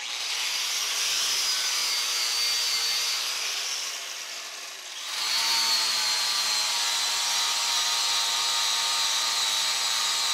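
Electric angle grinder with a paint-stripping abrasive disc scrubbing rust and paint off a rusty drill press table, running steadily with a high whine. About halfway through it eases off for a moment, then bites back in.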